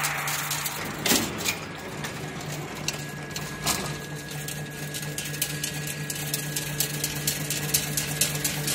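Chain link fence machine running in automatic mode: a steady motor hum with a continual patter of clicks and knocks from its mechanism, the sharpest knocks about a second in and again past three and a half seconds. It is running normally after its edge-bending hook was adjusted.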